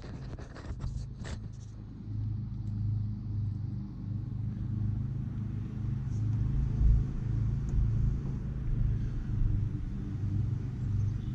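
A few sharp clicks, then a steady low engine rumble that grows louder about two seconds in and keeps running. It is not the mower cranking: the lawn tractor still won't turn over.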